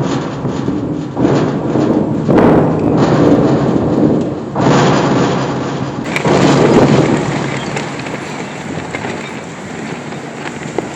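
Heavy rain and wind in a storm, rushing loudly with four or five swelling surges in the first seven seconds, then settling into a steadier downpour.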